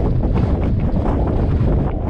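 Strong, gusty wind buffeting the microphone, a loud low rumble that flutters rapidly.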